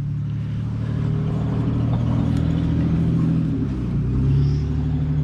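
An engine running steadily with a low, even hum, its pitch dipping briefly about four seconds in.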